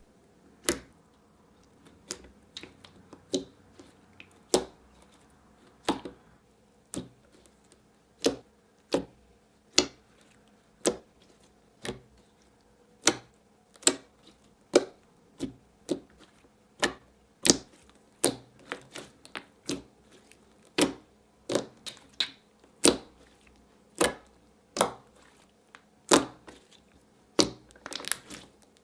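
Glossy slime with a hint of clay being pressed and poked by hand, giving sharp clicks and pops about once or twice a second at uneven intervals.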